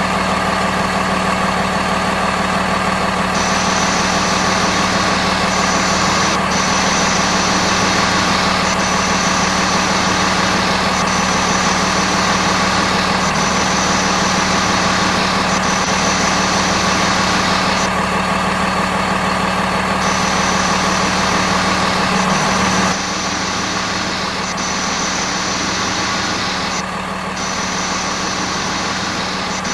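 Steady engine idling sound of an RC dump truck, most likely the simulated diesel idle from the toy's sound unit. About two-thirds of the way through it changes abruptly and drops a little in level.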